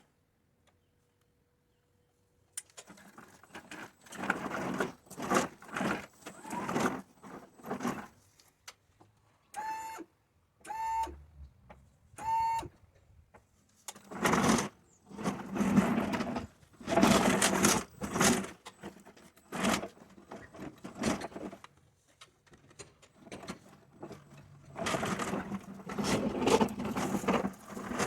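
Irregular clattering, knocking and rustling of handled parts or tools, with three short electronic beeps about ten to twelve seconds in.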